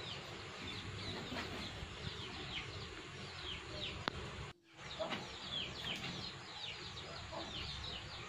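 Birds chirping in the background: many short, falling chirps overlapping, with a brief break about halfway through.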